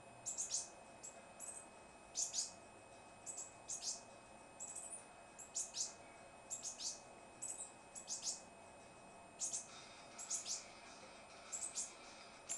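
Green-headed tanager (saíra-sete-cores) giving short, high-pitched calls, each a quick downward sweep. They come in quick groups of two or three, every second or so.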